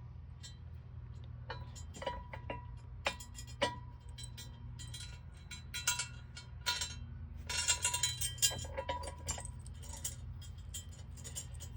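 Steel ratcheting jack stands and their safety pins being handled: scattered metal clicks and clinks, some ringing briefly, with a busier stretch of rattling past the middle.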